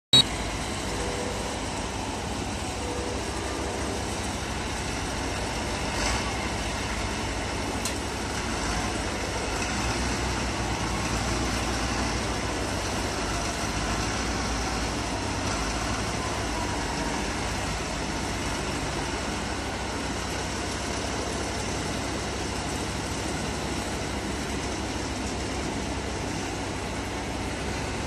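Large wheel loader's diesel engine running steadily as it drives forward carrying a stack of crushed cars on its forks. A sharp click right at the start and a knock about six seconds in.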